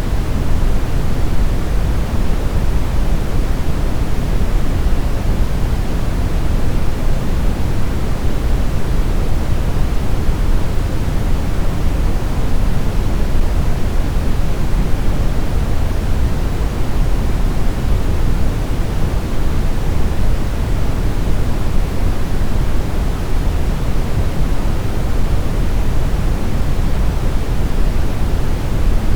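Steady brown noise: an even, deep rushing hiss, strongest in the low rumble and fading toward the top.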